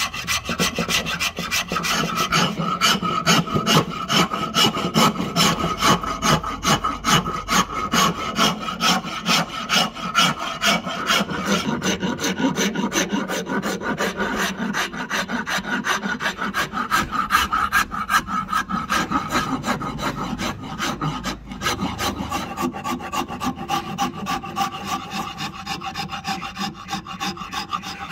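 Flat steel hand file scraping back and forth across a hardwood axe handle in rhythmic, even strokes, shaping the handle's edge.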